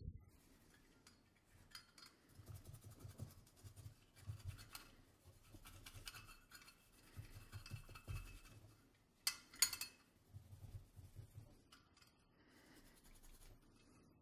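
Scotch-Brite pad scrubbing the metal case of a Zippo lighter to take the sheen off the finish. It comes as faint bursts of rapid back-and-forth strokes, with a couple of sharp clinks a little past halfway.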